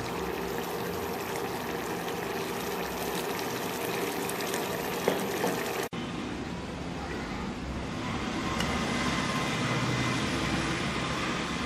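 Poricha kuzhambu (vegetable curry) simmering in a pan, a steady bubbling hiss, broken by an abrupt cut about six seconds in, after which a similar steady noise carries on.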